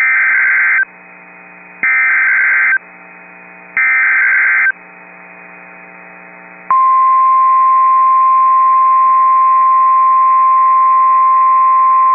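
Emergency Alert System tones from a weather radio: three short warbling SAME data bursts about two seconds apart, with faint static between them, then a little past halfway the steady single-pitch 1050 Hz weather radio warning alarm tone comes on and holds. Together they announce a tornado warning.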